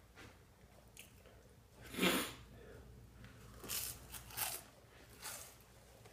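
Mouth and breathing sounds of a man eating toast, with one sharp, loud burst about two seconds in and four shorter noisy bursts after it.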